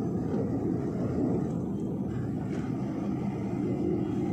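Goods truck driving along a highway, its engine and tyre noise heard from inside the cab as a steady low rumble.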